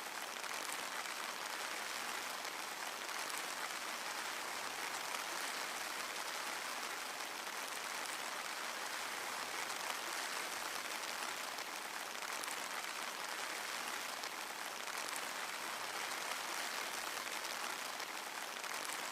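Steady rain falling, a dense even hiss with faint scattered drop ticks through it.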